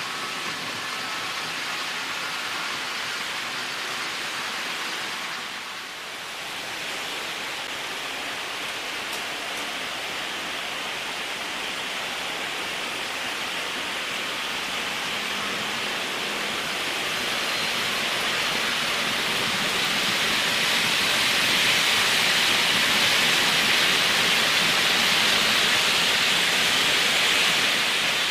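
Märklin H0 model trains running on the layout's track, a steady rolling hiss of wheels on rails that grows louder in the second half as a train comes closer.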